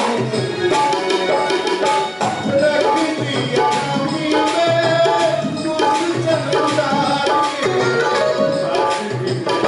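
Shiva bhajan music: a held, pitched melody over drum strokes in a steady rhythm.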